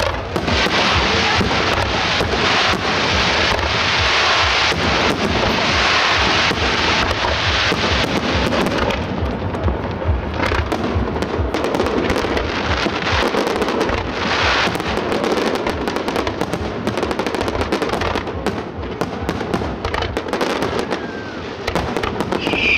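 Fireworks display: aerial shells bursting in a rapid, dense barrage of sharp bangs and crackling, the bangs coming thickest in the later part.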